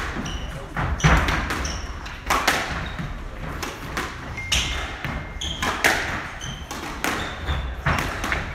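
Squash rally: the ball hit sharply off rackets and the court walls every second or so, with short high squeaks of the players' shoes on the wooden floor between the hits.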